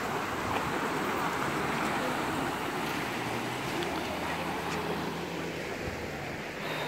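Steady rush of fast, turbulent river water pouring through a sluice gate.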